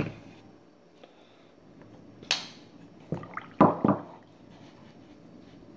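Child eating spicy instant noodles and drinking: a sharp click at the start, then a few short wet slurps, one about two seconds in and a cluster between three and four seconds.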